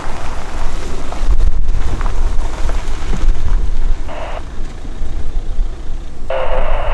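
Wind buffeting the microphone in heavy low rumbles. A short burst of air-band radio voice comes about four seconds in, and radio chatter starts again near the end.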